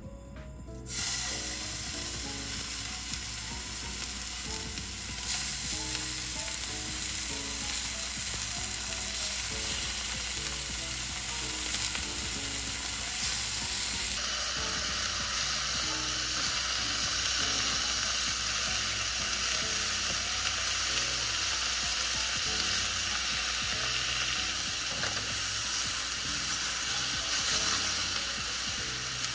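Hot oil sizzling in a frying pan as raw pork slices are laid in and turned with chopsticks. The sizzle starts about a second in and grows fuller about halfway through as more slices go into the pan.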